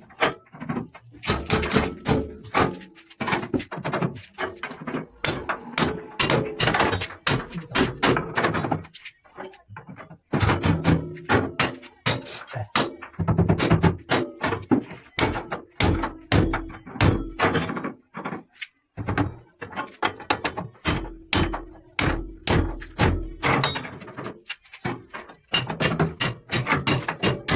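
Repeated knocking and hammering, a few blows a second, in runs broken by short pauses, as a metal grill is fitted into a wooden window frame.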